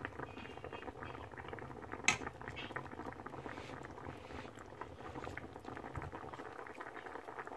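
Coconut-milk adobo broth boiling in an open frying pan: a steady crackle of small bubbling pops, with one sharper click about two seconds in.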